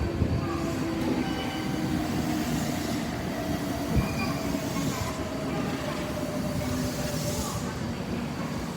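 Kintetsu express electric train pulling into the station and slowing, with rumbling wheels on the rails, a slowly falling whine and wheel squeal.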